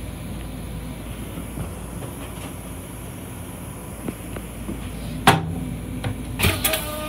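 Steady low rumble inside a Long Island Rail Road M7 car's restroom, with one sharp loud clunk about five seconds in and a quick cluster of knocks a second later, after which a few steady tones come in near the end.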